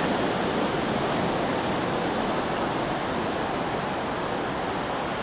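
Ocean surf washing onto the beach, a steady even rush with no distinct breaks.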